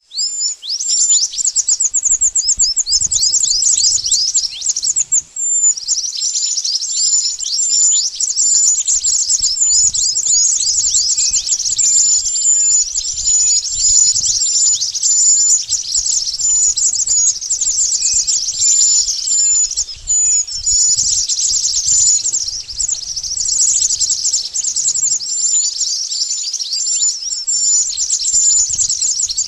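Pied bushchat (Javanese 'mantenan') calls played as a bird-lure recording: a dense, continuous stream of rapid, high, downward-sweeping chirps and twitters, with a short break about five seconds in.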